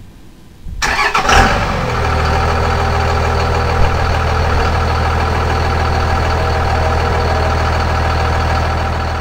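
An engine cranks and catches about a second in, then idles steadily.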